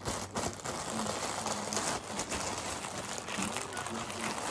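Clear plastic packaging bags crinkling and rustling as they are handled, a continuous crackly rustle.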